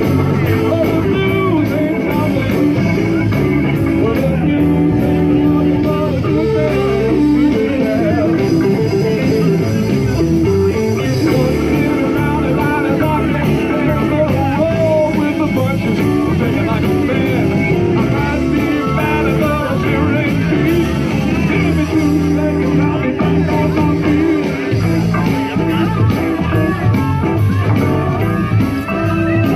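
Live blues band playing, with electric guitar and singing.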